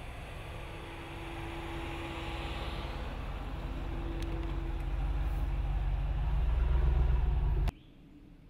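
2017 Ram 2500's 6.4-litre HEMI V8 running at low speed as the pickup drives along a dirt trail, growing steadily louder as it comes close and passes, then cutting off abruptly near the end.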